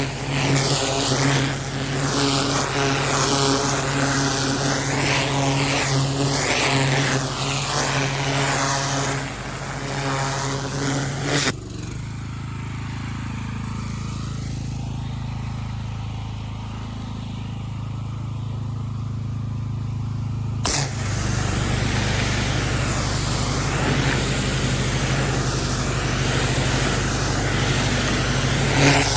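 A pressure washer running steadily, its engine tone under the hiss of the water jet, which shifts and sweeps as the spray moves over rock and gravel. For a stretch of about nine seconds in the middle, the spray hiss drops away and leaves a lower hum, then the full sound comes back.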